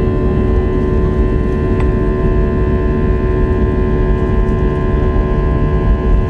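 Inside the cabin of an Airbus airliner on its takeoff roll: the jet engines run at high thrust with a steady whine of several tones over a heavy low rumble.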